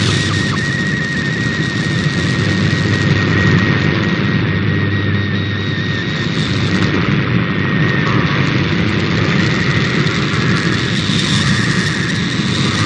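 Shortwave radio reception of an MFSK32 digital text transmission: the data signal sits under heavy static and local interference, with a steady thin tone running throughout.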